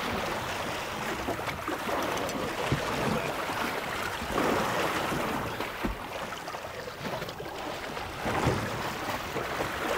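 Steady wind and sea noise on a small boat, with a few faint knocks.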